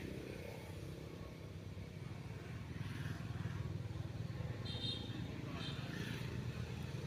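Steady low hum of a motor engine running, with two brief high chirps about five seconds in.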